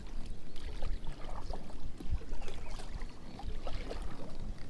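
Kayak moving along on calm water: low water and hull noise with scattered light clicks and knocks from the boat and its gear.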